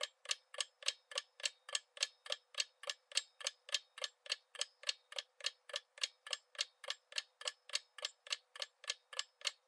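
Quiz countdown-timer sound effect: light, clock-like ticks at a steady pace of about four a second.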